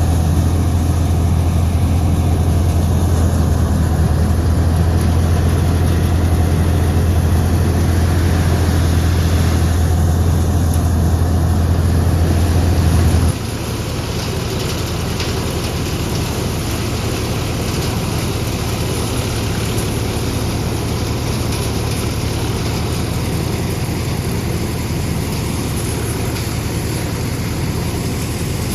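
Sonalika DI 42 RX tractor's diesel engine running steadily with a low drone. About 13 seconds in, the sound changes abruptly to a quieter, slightly higher-pitched drone.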